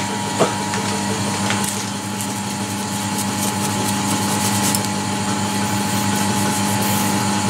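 Metal shaper's electric motor running with a steady hum, with a few faint scratches of a brush sweeping metal chips off the freshly cut workpiece.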